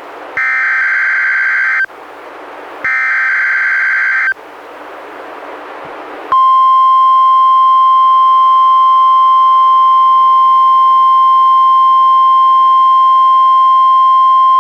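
NOAA Weather Radio emergency alert signal from a Reecom R-1630 weather radio: two short, harsh screeching bursts of SAME digital header data about a second apart, with radio hiss between them. About six seconds in, the steady 1050 Hz warning alarm tone starts and holds to the end.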